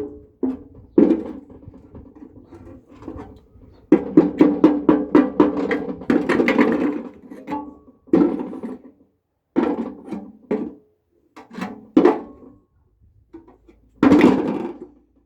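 Irregular knocks and rattles from a washing machine drum, each ringing briefly, with a longer run of rapid rattling in the middle and a heavy knock near the end.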